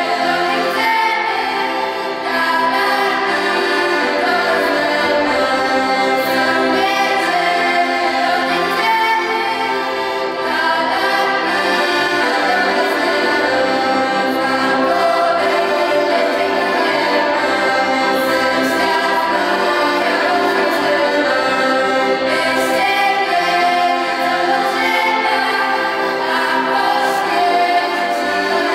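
A group of young singers, girls and a boy, singing a song together, accompanied by a piano accordion.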